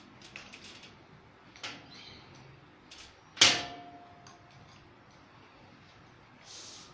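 Light clicks and taps, with one sharp knock about three and a half seconds in that rings briefly after it.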